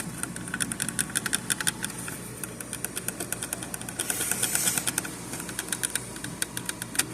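A screw being tightened with a screwdriver: a rapid, slightly uneven run of clicks, with a short hiss about four seconds in.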